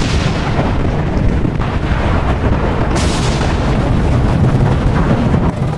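Loud, continuous rumbling noise with a sharper crash about three seconds in.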